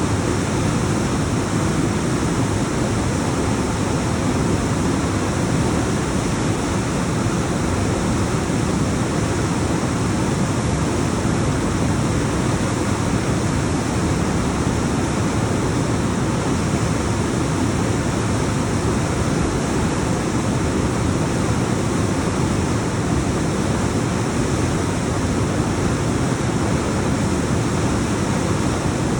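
Alpine mountain waterfall: water cascading down rocks in a steady, continuous rush, heaviest in the low end.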